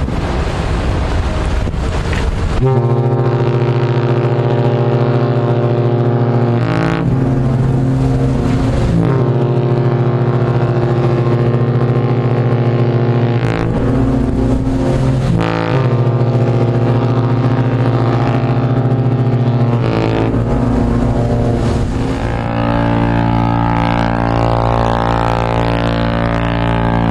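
The Queen Mary 2's compressed-air Tyfon ship horns, pitched to a low A (55 Hz), sounding a long, deep, steady blast that starts about three seconds in and wavers in tone a few times. Before the blast there is a loud rushing rumble.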